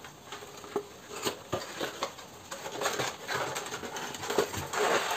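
A cardboard box being opened and handled by hand: paper and cardboard rustling with scattered light clicks and taps, busier and louder in the second half as the flap is opened and the insert pulled out.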